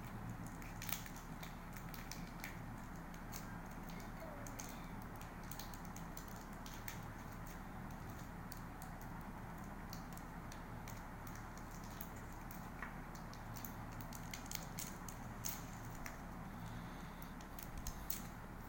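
Foil and paper chocolate candy wrappers crinkling in a child's fingers as the candies are unwrapped: irregular light crackles over a steady low hum.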